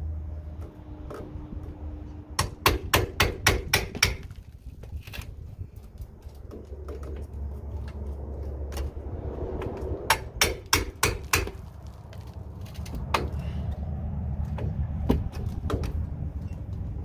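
Hand hammer striking in quick runs: one burst of about eight sharp blows a couple of seconds in, another of about seven near the middle, then two single blows, while working a window frame loose from stucco and mortar.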